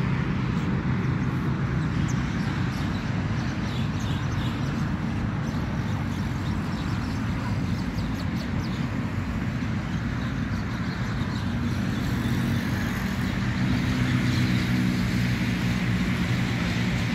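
Steady low rumble of motor vehicle noise, even throughout, with a few faint high chirps in the first half.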